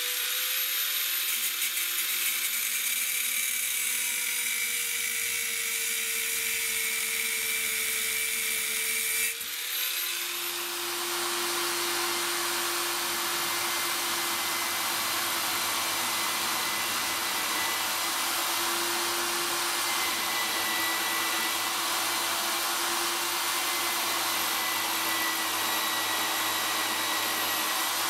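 Small angle grinder spinning up and running steadily as it cuts off a protractor's riveted pin. About nine seconds in it gives way to a drill running steadily while its bit bores through the thin metal protractor.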